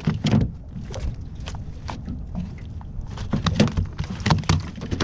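Irregular knocks and scuffs of a flathead being held down and handled on a plastic measuring mat on a boat's carpeted deck, over a low steady rumble.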